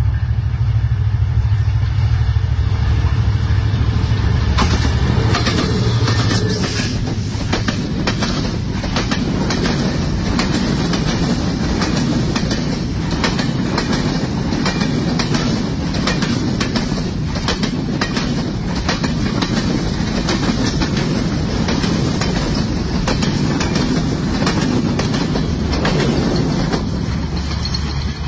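Passenger train of white PT INKA coaches passing close behind a diesel locomotive: a deep rumble as it comes in, then a long, steady clickety-clack of coach wheels over the rail joints. Near the end the clatter gives way to a low rumble again.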